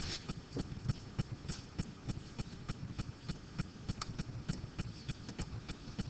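Irregular light clicks and taps, several each second, over faint room noise.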